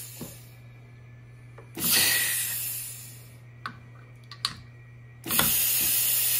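PwnCNC ATC spindle's pneumatic tool release blowing compressed air in loud hissing blasts as the manual tool change button is worked: two blasts, each about a second and a half long, with a few small clicks between them.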